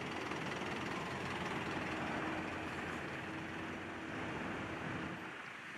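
Fire engine driving past and away, its engine running with road noise and a steady low hum; the sound drops off sharply near the end.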